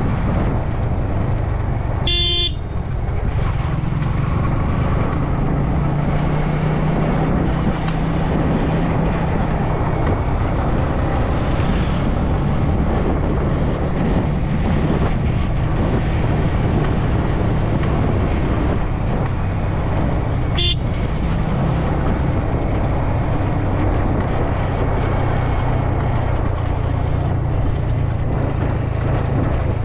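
Yamaha MT-15's single-cylinder engine running steadily at cruising speed under a rush of wind noise, heard from the rider's seat. A short horn toot sounds about two seconds in, and a briefer one about twenty seconds in.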